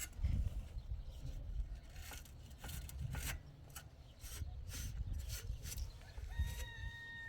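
Repeated rubbing and clicking, then a single drawn-out animal call of about a second near the end, steady in pitch and dipping slightly as it ends.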